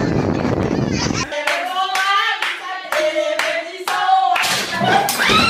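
Hand claps at about two a second, with a voice singing or chanting in time between them. Before that, for about the first second, there is a dense noisy rumble.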